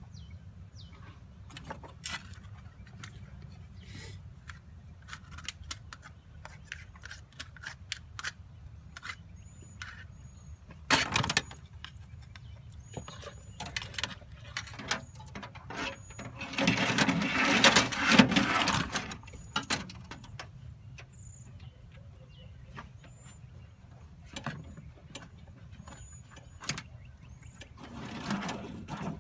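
Hands working on a golf cart's wiring, running a kill switch wire: scattered clicks and knocks, one sharper knock, and a louder stretch of scraping and rustling about two-thirds of the way through as the wire is pulled through.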